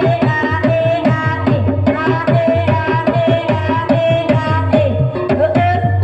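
Live Javanese gamelan accompanying an ebeg trance dance: hand-drum strokes in a steady, quick rhythm under short ringing notes from metal gong-chimes.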